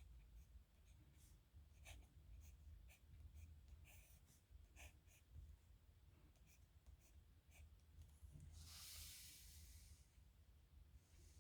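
Faint scratching of a steel-nib dip pen on paper, in short strokes and ticks. About nine seconds in there is a soft hiss lasting about a second.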